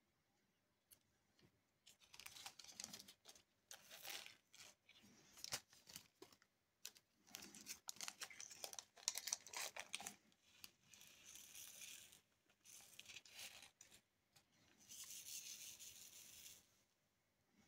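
Quiet rustling and clicking of round resin diamond-painting drills sliding and rattling in a plastic sorting tray as it is shaken, in repeated bursts.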